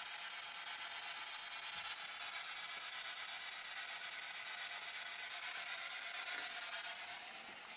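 Steady static hiss from a phone's small speaker, thin and without bass, as from a ghost-box app playing between questions; it drops a little near the end.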